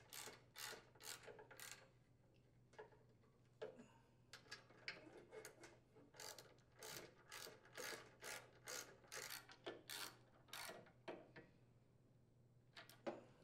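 Socket ratchet clicking in short strokes, about two or three clicks a second, as bolts are driven into a steel bracket.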